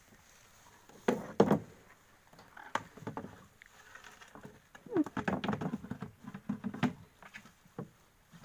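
Irregular knocks and clatter inside a small wooden boat as fishing line and gear are handled against the hull, with a loud pair of knocks about a second in and a busier run of knocks in the second half.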